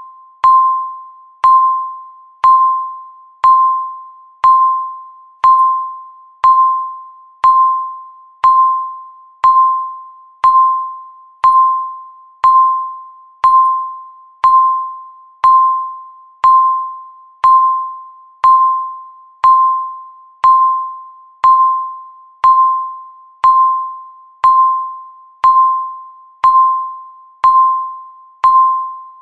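Countdown timer beeping once a second: a single pitched, chime-like beep that starts sharply and fades away before the next one, repeating evenly.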